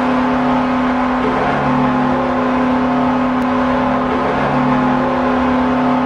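Ice hockey goal horn sounding in long, loud blasts with short breaks between them, over a cheering crowd, signalling a Buffalo Sabres goal.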